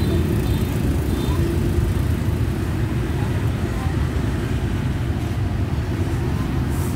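A steady low rumble of outdoor background noise with no sudden sounds standing out.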